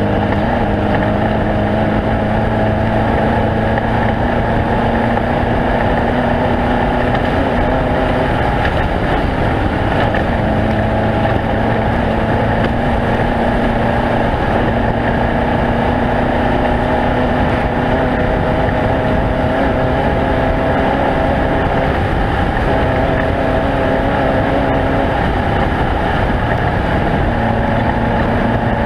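Off-road race vehicle's engine running continuously at a steady, high speed, its pitch wavering only slightly, with rough noise from the drive over it.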